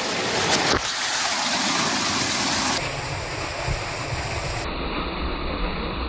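Waterfall rushing heard from close up, near enough that its spray reaches the camera: a loud, steady roar of falling water. A few brief clicks about half a second in.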